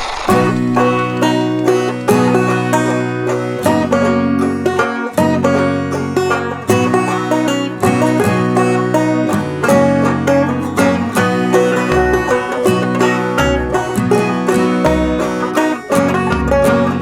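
Background music: fast banjo-led bluegrass-style tune with a plucked bass line.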